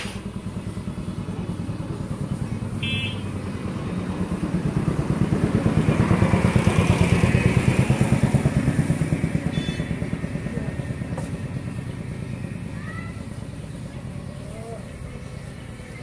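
Engine of a passing motor vehicle, its rapid firing pulses growing louder to a peak about halfway through and then slowly fading away.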